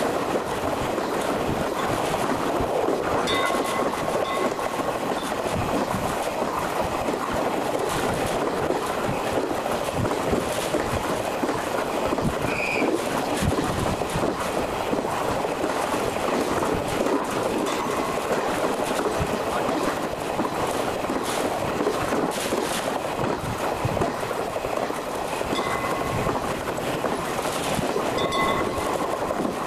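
Train running along the line, a steady dense rumble of wheels on rails. A faint high whine comes in briefly about three seconds in and again near the end.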